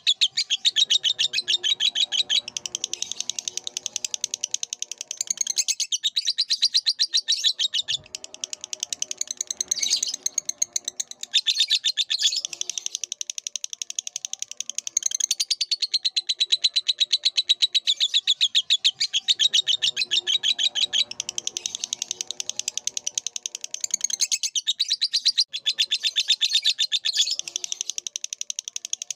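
Lovebird singing a long, rapid chattering run of high chirps, going on almost without pause, with a few short breaks.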